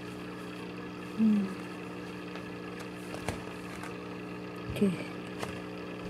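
Steady low electrical hum of aquarium equipment, several even tones held without change. Two brief vocal sounds break over it, one about a second in and a short falling one near five seconds, with a few faint clicks.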